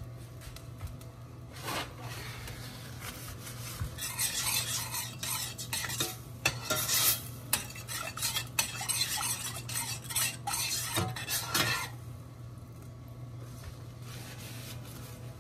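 A slotted metal spoon stirring a thin tomato sauce in a stainless steel saucepan, scraping and clinking against the pot's sides and bottom. The stirring stops about twelve seconds in.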